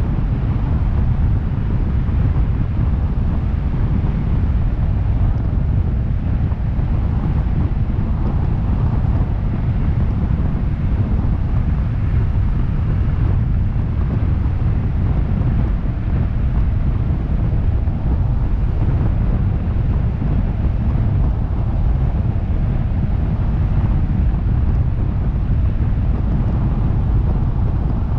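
Steady low rumble of a car driving at speed through a road tunnel: tyre and road noise with wind buffeting a microphone mounted on the outside of the car.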